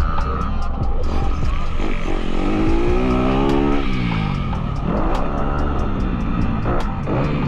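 Motocross dirt bike engine under hard throttle on a dirt track. Its pitch climbs about two seconds in, then drops a couple of seconds later as the throttle is rolled off, and rises again near the end.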